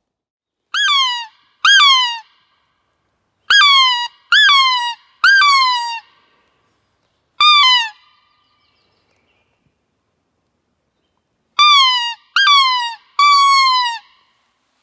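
Crow locator call blown by hand: nine loud, harsh caws in groups of two, three, one and three, each note sliding down in pitch.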